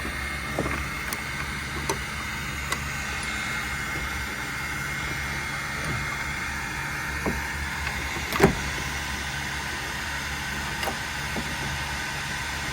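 Steady mechanical hum with a few light clicks and one sharper knock a little past halfway.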